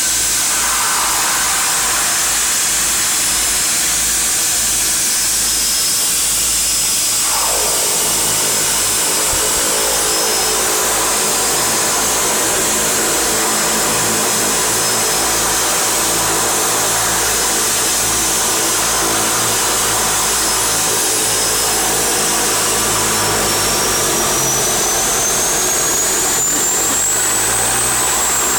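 Seaplane's turboprop engines heard from inside the cockpit, running steadily at low power while the plane taxis on the water, with a loud hiss and steady low engine tones. Near the end a high turbine whine rises in pitch, then eases slightly.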